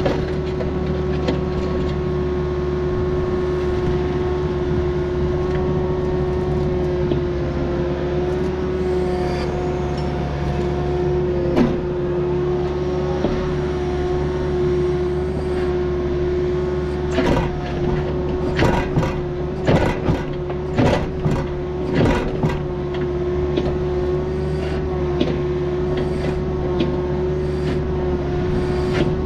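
Diesel engine and hydraulics of a Takeuchi earthmoving machine running steadily at working speed with a constant whine. A run of sharp knocks and clanks about two thirds of the way through.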